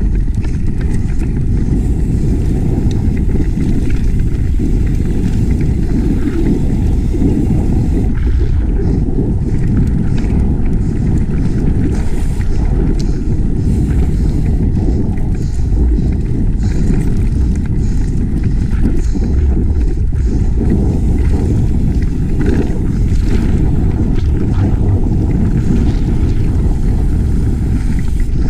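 Wind buffeting the microphone of a camera on a mountain bike descending at speed: a loud, steady low rumble, with scattered knocks and rattles from the bike over rough trail.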